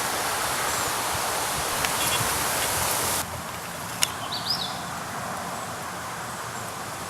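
Steady rustling hiss, which drops abruptly to a quieter level about three seconds in. A single click and a short high chirp follow a second or so later.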